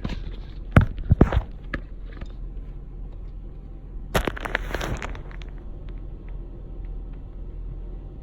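Close handling noises: a few sharp knocks about a second in and a rustling burst about four seconds in, like things being rummaged through and handled, over a steady low hum from the stopped car.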